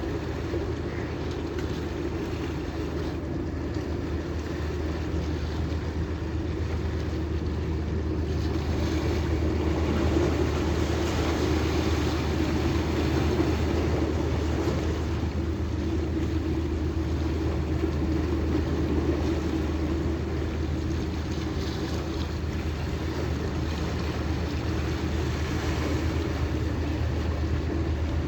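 Boat engine running steadily under way, a constant low drone mixed with wind and water noise.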